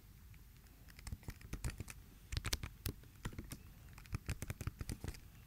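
Computer keyboard typing: several quick runs of keystrokes with short pauses between, starting about a second in.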